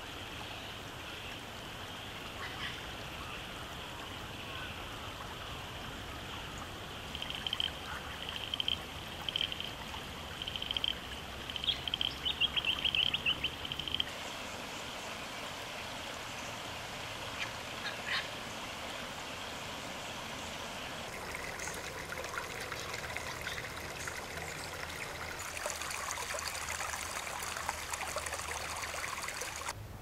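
Outdoor bush ambience of a creek: a steady rush of flowing water with high animal calls over it, including rapid chattering trills in the first half. The background shifts abruptly a few times.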